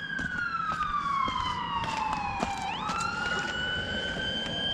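Emergency vehicle siren wailing: its pitch slides slowly down for over two seconds, jumps back up a little past halfway, then climbs slowly again. Scattered short knocks sound underneath.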